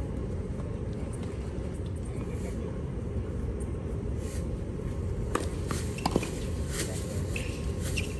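Tennis rally on a hard court: a few sharp pops of the ball off the racquets and court in the second half, over a steady low rumble of outdoor background noise.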